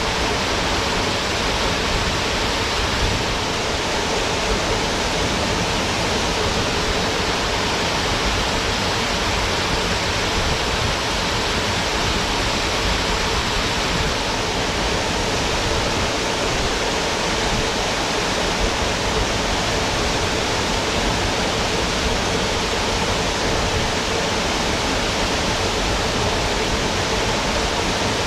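A small waterfall pouring into its plunge pool: a steady, even rush of falling water that does not change.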